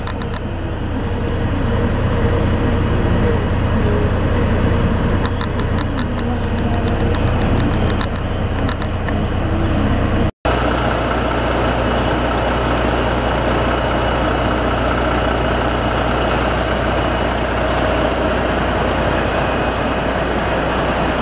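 Volvo FH12 440's 12-litre straight-six diesel idling steadily. The sound drops out for an instant about ten seconds in, and the idle goes on after it.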